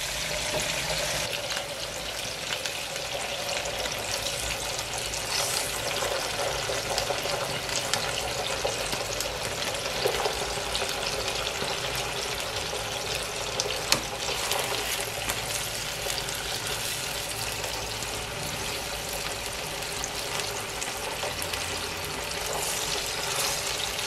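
Halved potatoes sizzling steadily as they fry in a non-stick frying pan. A few light clicks come as silicone-tipped tongs turn the pieces, the sharpest a little past the middle.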